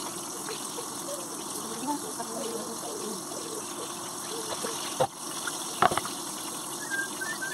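A steady rushing hiss, with two sharp knocks of a plastic cutting board being moved on the counter about five and six seconds in, the second the louder.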